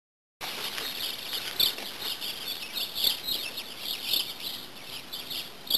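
Small birds chirping over and over in quick, high calls, starting about half a second in, with two sharp clicks, one early and one near the end.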